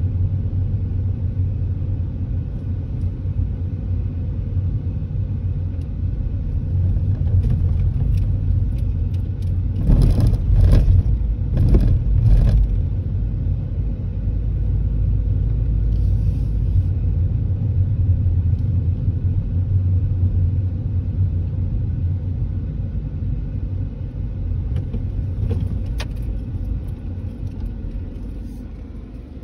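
Car interior road noise while driving: a steady low rumble of tyres and engine heard from inside the cabin, growing briefly louder in a few quick pulses about ten to twelve seconds in and fading near the end.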